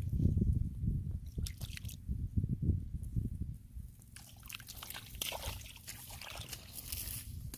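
Hands and bare feet sloshing and squelching in shallow muddy water, with dripping. In the second half it turns quieter, to light crackling and rustling.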